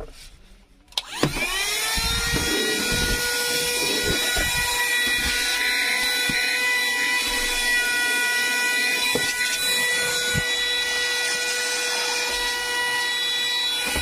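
Bergmann Tornado 12V handheld car vacuum cleaner switched on with a click about a second in. Its motor spins up to speed within a moment, then runs steadily with a high whine over rushing air through the crevice nozzle.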